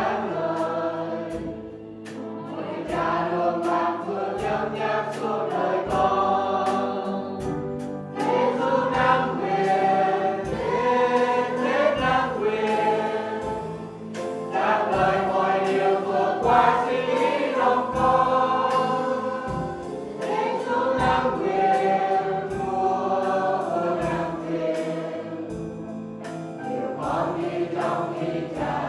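Several voices singing a Christian hymn together, with instrumental accompaniment, in long held phrases of a few seconds each.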